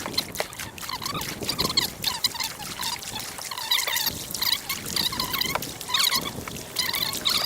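River water gurgling and splashing close by, a busy run of small drips, splashes and bubbling chirps with no steady rhythm.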